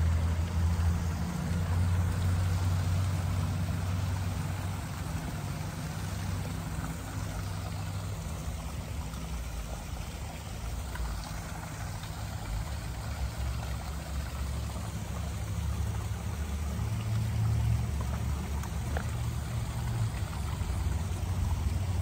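Small waterfall splashing and trickling into a garden pond, under a steady low rumble.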